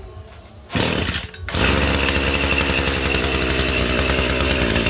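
Echo GT260 two-stroke brushcutter engine starting: a short burst about three-quarters of a second in, then it catches about a second and a half in and runs steadily and solidly.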